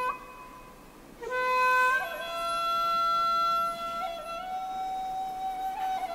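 Background music: a solo flute playing a slow melody of long held notes. One note ends at the start, and after a short pause a new note comes in about a second in and steps up to a long held tone, with small bends in pitch between notes.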